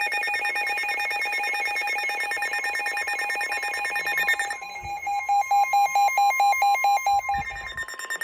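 Several NOAA weather radios sounding their electronic alert alarms together, a fast warbling beep of several tones, which signals that a warning has been received. About halfway through, a steady tone joins, the NOAA Weather Radio warning alarm tone, and the radios' beeping changes to a slower pulse under it.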